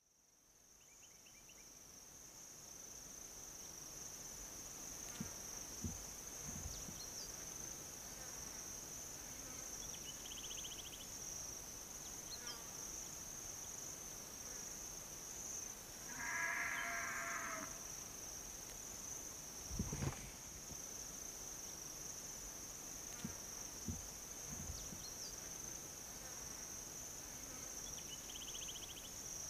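Insects chirring, a steady high-pitched drone that fades in over the first few seconds. It is broken by a few faint chirps, a brief louder pitched call about sixteen seconds in, and a low thump about twenty seconds in.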